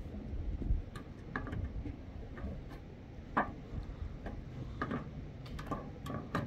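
A scattering of light clicks and taps at uneven intervals, about a dozen in all, over a low background rumble.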